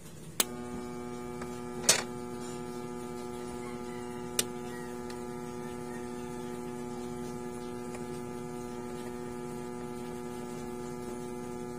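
VGL VG-639MG portable AM/FM radio switched on with a click at its volume knob, its speaker giving a steady buzz instead of any station sound: the no-sound, buzzing fault it is being repaired for. Two more sharp clicks follow within the first few seconds.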